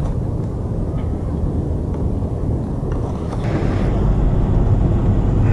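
Tornado sound effect: a steady low rumble of wind that grows a little louder a little over halfway through.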